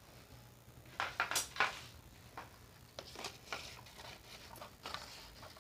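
Paper strips rustling and scraping as they are pressed against the oiled sides of a cake bowl: a string of short, irregular rustles with light knocks of the bowl, the loudest cluster about a second in.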